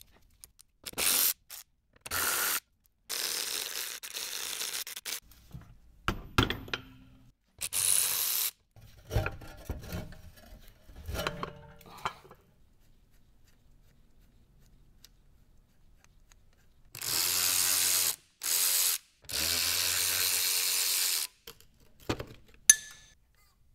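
Hand and power tools working on bolts under the car. There are several bursts of a power tool, each a second or two long and the longest near the end, with ratcheting, clicks and metal knocks in between, as fittings are undone to take out the drive shaft and free the transmission.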